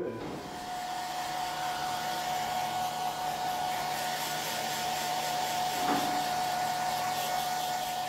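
Handheld hair dryer running steadily, blowing onto a face to dry zombie makeup, with a steady high whine over the rush of air.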